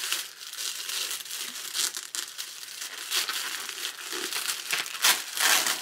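Tissue paper wrapping crinkling and tearing as a package is pulled open by hand, with irregular rustles and louder bursts about five seconds in.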